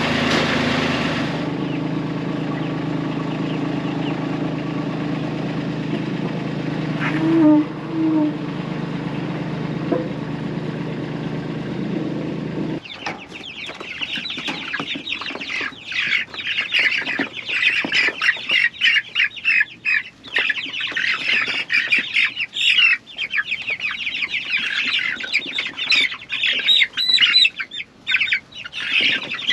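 An engine runs steadily for about the first thirteen seconds and then cuts off abruptly. After that, a flock of meat chickens clucks and cheeps, with many short clicks and rustles among the calls.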